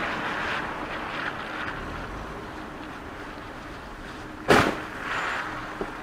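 Steady street and traffic noise with one sudden loud bang about four and a half seconds in: a car crash at an intersection.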